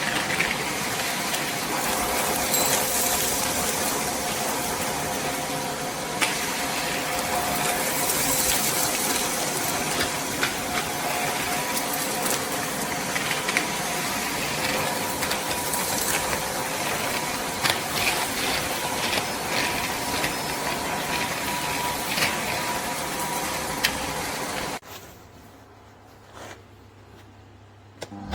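Nilfisk Multi II 30 T wet/dry vacuum cleaner running with a steady motor whine and rushing air, with scattered clicks and rattles of debris being drawn through the hose. The sound cuts off abruptly near the end.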